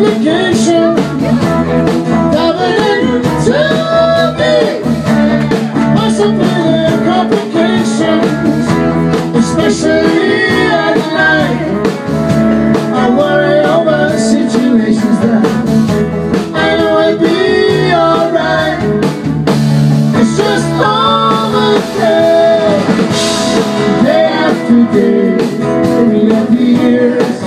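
Live rock band playing in a small club, with guitar to the fore over bass and drums and a lead line that bends up and down in pitch.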